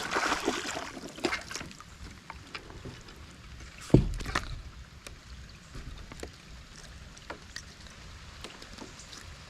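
Sounds around a kayak in the rain: splashing in the first second or so, then scattered light knocks and drips, with one loud knock against the boat about four seconds in.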